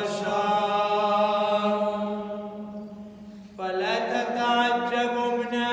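A man's voice intoning the Arabic Gospel reading as a liturgical chant, in long held notes over a steady low tone. The phrase fades out about three seconds in, and a new phrase begins about half a second later.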